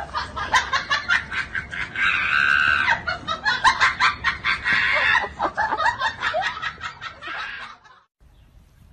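People laughing hard in quick, repeated bursts, with a few longer high-pitched peals. The laughter cuts off near the end.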